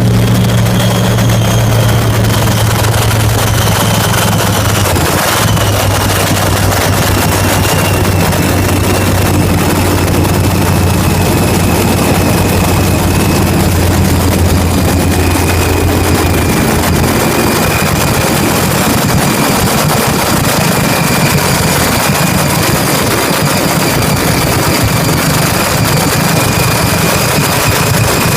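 Top Alcohol Funny Car's supercharged methanol V8 running loud and steady on its first start after a fresh rebuild, with a high whine that slowly climbs in pitch over the second half as the revs come up a little.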